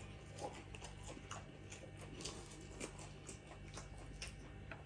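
Faint close-up chewing of a crispy fried chicken tender: a run of small, irregular mouth clicks and crunches.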